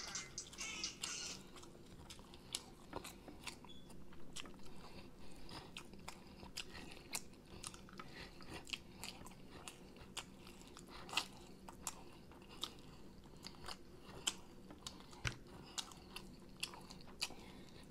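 Close-miked eating of sauced chicken wings: irregular wet smacks and sharp crunches as meat is bitten and chewed off the bones. Music from a phone ringtone trails off in the first second.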